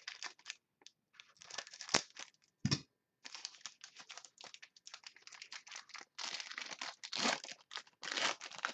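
Scissors cutting open a trading-card pack, then the wrapper crinkling and tearing in irregular crackles as hands pull it open, with a single soft knock a little under three seconds in.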